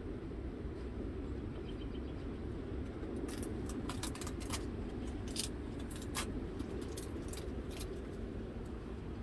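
Steady low rumble of gusty wind, with a run of short, sharp clicks from about three seconds in to near the end.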